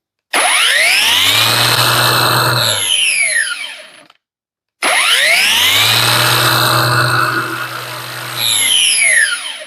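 Parkside Performance PPWSFA 20-LI A1 cordless brushless angle grinder running free with no load, twice. Each time the motor spins up with a rising whine, holds steady for a few seconds, then is released and winds down with a falling whine.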